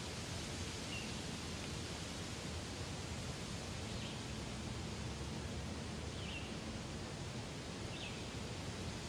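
Steady outdoor background hiss with faint bird chirps four times.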